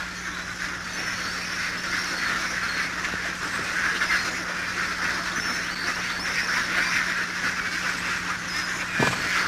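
A large flock of penned ducks quacking all together in a dense, continuous chatter that grows gradually louder.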